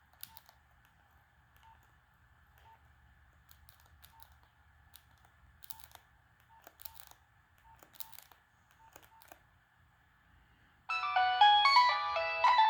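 Nokia 6015i keypad being pressed: faint clicks, several with a short beep, about one every second. About eleven seconds in, one of the phone's preloaded ringtones starts playing loudly through its speaker as a quick melody of several notes at once.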